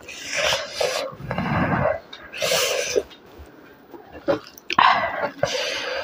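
Close-miked eating sounds: wet chewing and mouth smacking, with squelching as a hand mixes rice into curry, in irregular bursts with short pauses.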